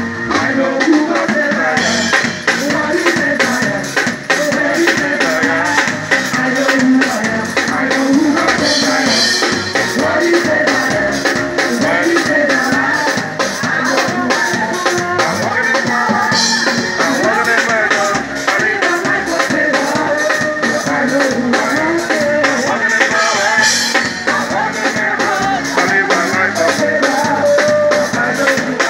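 Live church praise music from a band on a truck: a drum kit keeps a steady beat under a singer amplified through a microphone and loudspeakers.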